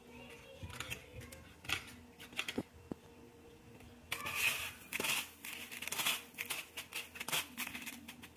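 Hands coating a raw chicken nugget patty: a few faint soft taps and scrapes, then, from about four seconds in, a crisp rustling and crunching as it is pressed into dry breadcrumbs in a plastic tub.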